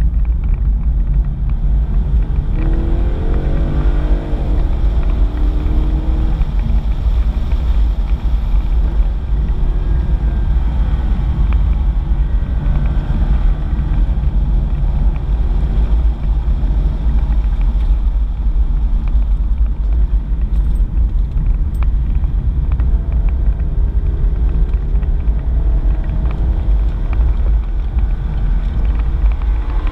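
VFII Commodore's 6.2-litre V8 engine heard from inside the cabin under hard driving, with a constant deep rumble. Its pitch rises under acceleration a few seconds in and again near the end.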